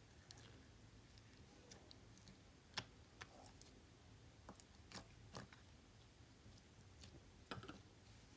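Faint, scattered clicks and pops of slime being squished and poked by hand, about five of them, the loudest nearly three seconds in and near the end.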